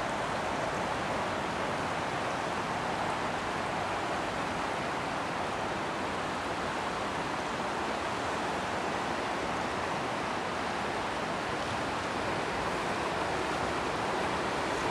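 The Adige river in flood, its swollen water rushing past in a steady, even noise.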